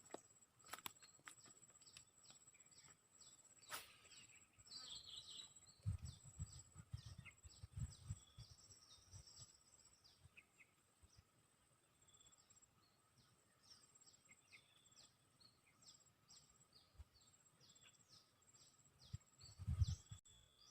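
Quiet outdoor ambience with small birds chirping in short, repeated calls and a faint steady high hum. There are a few brief low rumbles, around six to eight seconds in and again near the end.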